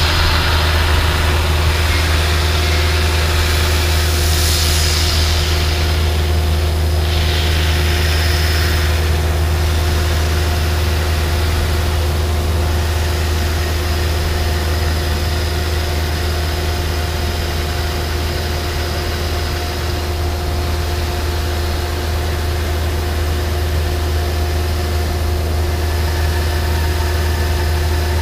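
Abrasive fast-wire CNC profile saw cutting a dense polyisocyanurate foam block: a steady low machine hum with a few faint steady tones above it. A hiss from the wire running through the foam swells three times in the first ten seconds.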